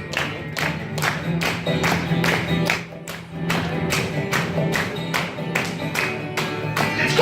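Guitar strummed in a steady, even rhythm of about four strokes a second, playing an instrumental passage of a rock song with no drums behind it.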